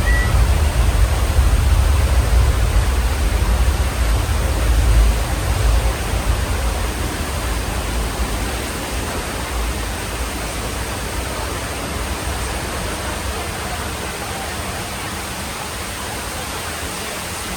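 Rushing water of a staged flood and earthquake special effect on a soundstage set. A heavy low rumble runs for the first five or six seconds, then dies down, leaving a steady rushing noise.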